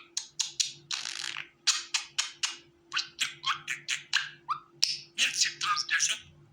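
Budgerigar chirping and chattering: a quick run of short, sharp chirps mixed with a few longer scratchy notes, over a faint steady hum.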